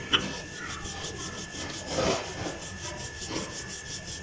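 Wooden rolling pin rolling paratha dough on a hard floured surface: rough back-and-forth rubbing strokes, with a sharp knock just after the start and a louder stroke about two seconds in.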